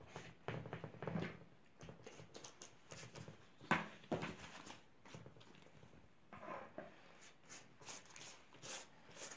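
Silicone pastry brush dabbing sauce onto crumpled yufka sheets in a baking tray: irregular soft taps and crinkling of the pastry, with one sharper tap a little under four seconds in.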